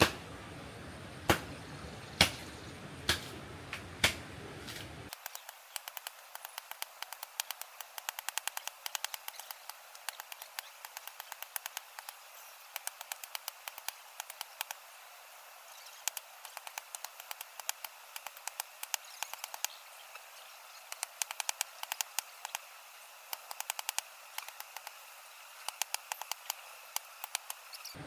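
Blows chopping into a slender tree trunk, a sharp knock about once a second for the first few seconds. After that the sound turns thin, with a long run of fast, fainter ticks.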